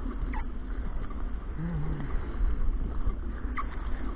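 Sea water sloshing and lapping around a kayak in choppy swell, with wind rumbling on the camera microphone at water level. Two brief high squeaks cut through, about half a second in and near the end.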